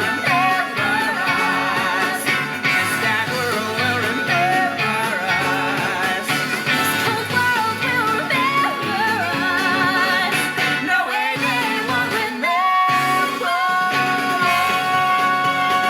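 Musical-theatre song with band accompaniment and singing voices with wide vibrato. After a brief drop about three-quarters of the way through, the voices hold a long sustained note to the end.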